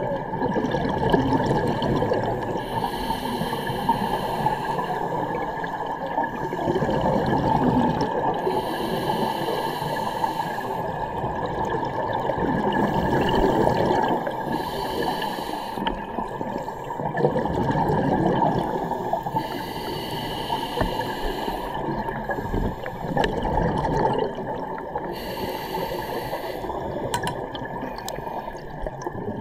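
Scuba breathing heard underwater: a regulator's hissing inhale alternating with a swell of bubbling exhaled air every five to six seconds.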